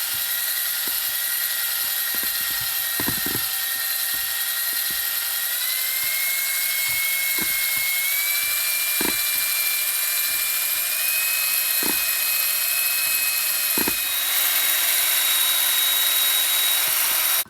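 Electric drill running continuously to mix cake batter, its motor whine stepping up in pitch a few times as the speed changes, with a few light knocks.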